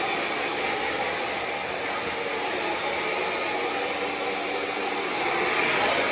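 BaBylissPRO handheld hair dryer running, a steady rush of blown air with a faint motor hum beneath it, getting a little louder near the end.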